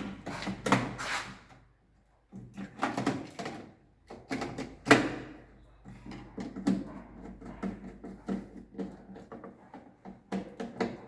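Plastic miniature circuit breakers clacking and knocking together as they are picked up, sorted and set down: an irregular string of clicks and clatters with a brief pause about two seconds in.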